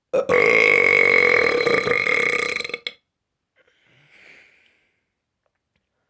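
One long, loud human burp lasting nearly three seconds, on a steady low pitch, followed about a second later by a faint breathy hiss.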